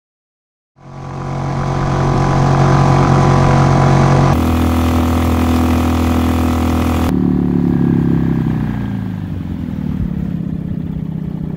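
Small boat outboard motor running steadily at speed, pushing an inflatable boat. The sound changes abruptly twice, and in the last few seconds the motor's pitch falls as it throttles down.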